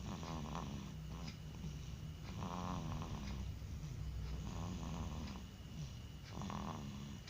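Snoring while asleep: a rough, wavering snore roughly every two seconds, four in all.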